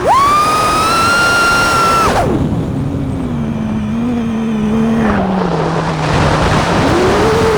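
FPV freestyle quadcopter's brushless motors (2208 1750kv on 6S) whining. A sharp throttle punch brings a high, steady whine for about two seconds, then the throttle is chopped to a low hum that sags slowly and rises again near the end, with rushing wind underneath.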